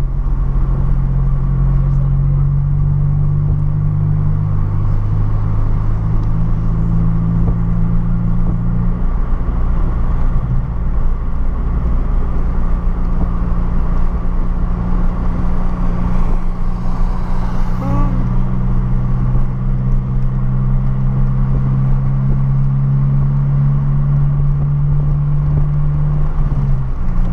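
Renault Clio 1.6 16V's K4M four-cylinder engine running steadily while the car is driven. Its tone holds fairly level, shifts in engine speed about a third of the way in and again past halfway, and dips briefly near the end.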